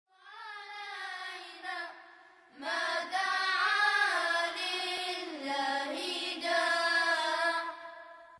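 A high voice singing a slow, wavering melody without accompaniment: a short phrase, a brief pause, then a longer, louder phrase that fades near the end.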